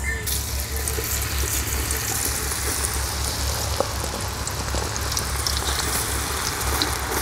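Thin-sliced cassava (tapioca) chips dropped by hand into hot sesame oil in a wok, the oil sizzling and bubbling hard with scattered crackles. The sizzle jumps up just after the start as the first slices hit the oil.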